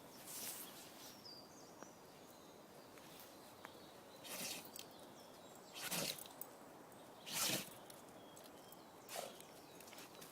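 Dog sneezing over and over: about five short, sharp sneezes one to two seconds apart, the loudest two in the second half.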